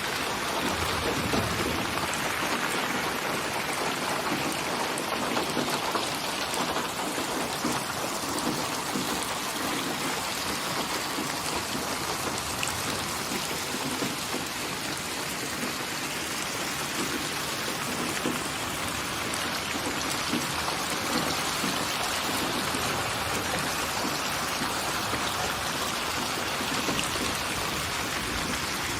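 Steady rain falling: an even, unbroken hiss of rain on surfaces, with scattered individual drop ticks.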